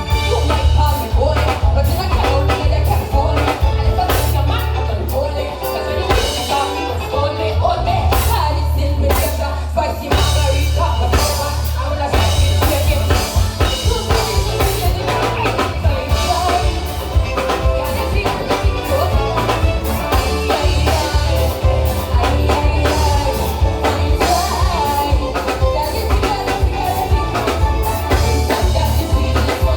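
Soca music at concert volume: a singer over a heavy, pulsing bass and a drum beat.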